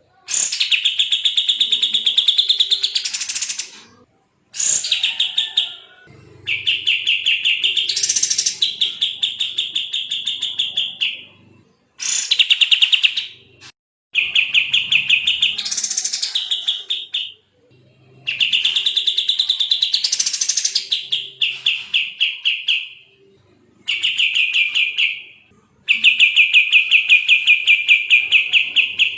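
A kapas tembak songbird singing fast, tightly packed song: about eight long phrases of rapid, evenly repeated high notes, each lasting a few seconds, with short pauses between them.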